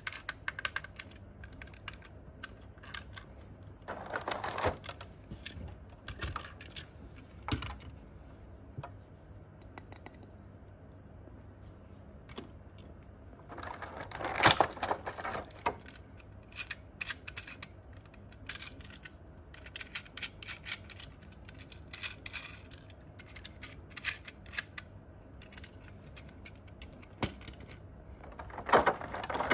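Hard plastic toy train parts clicking and tapping as they are handled and set down in a plastic packaging tray: scattered light clicks, with louder stretches of handling noise about four seconds in, around fourteen seconds and near the end.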